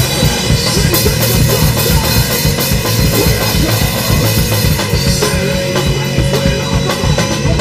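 A rock band playing loudly, with fast, dense drumming on a drum kit (bass drum and snare) over bass guitar.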